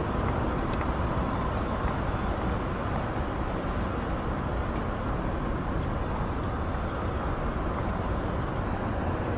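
Distant busy motorway traffic: a steady, even wash of tyre and engine noise with no single vehicle standing out.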